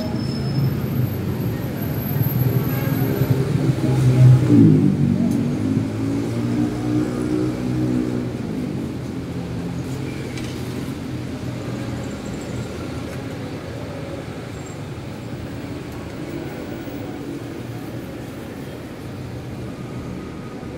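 Motor vehicle engine rumbling, loudest about four seconds in as its pitch dips and climbs again, then settling into a steadier low rumble.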